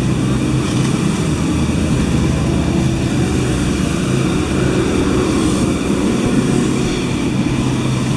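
A loud, steady engine drone with a low hum.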